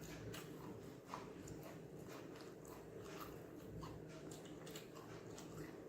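A person chewing a mouthful of chicken fried rice and egg podimas, with many soft, irregular wet mouth smacks and clicks.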